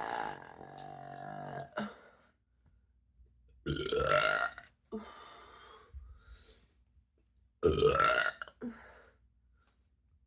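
A woman belching after drinking carbonated ginger ale. A long burp tails off in the first two seconds, then come two more loud burps about four seconds apart, each rising in pitch, with quieter throaty sounds between them.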